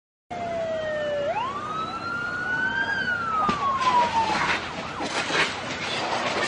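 Police motorcycle siren wailing: a tone that dips, swoops up sharply, climbs slowly and then falls away. From about halfway, a noisy clatter and scraping comes in as a police motorcycle and its rider go down on the road.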